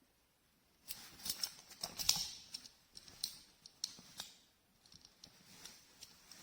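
A quick run of sharp clicks and scraping rustles lasting about three seconds, then a few fainter scattered ticks.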